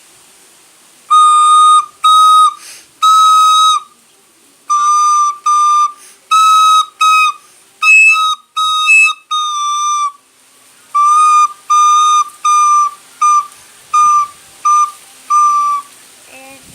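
A whistle blown in a long series of loud toots, some long and some short, nearly all on one high pitch, with two toots near the middle jumping up an octave; the toots come quicker and shorter towards the end.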